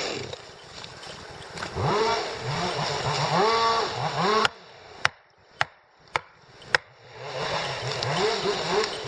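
Chainsaw engine revving up and down, its pitch rising and falling in quick swells. About halfway through it gives way to a quiet stretch broken by four sharp knocks about half a second apart, then the engine sound comes back near the end.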